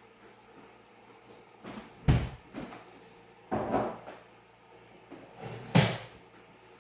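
Kitchen cupboard doors opening and shutting with the clatter of things being handled: three loud sharp knocks about two, three and a half and six seconds in, with lighter bumps between.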